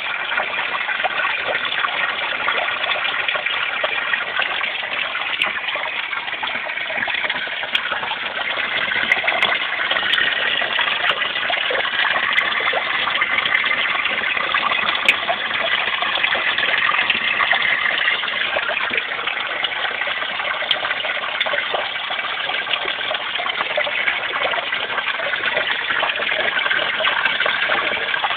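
Steady rushing and bubbling of moving pond water, heard with the microphone underwater.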